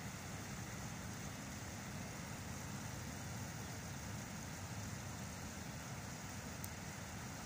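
Steady outdoor city background noise with a low rumble; no bird calls are heard.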